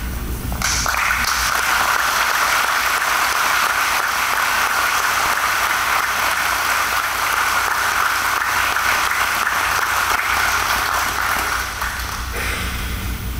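Audience applauding steadily, starting just after the opening and dying away near the end.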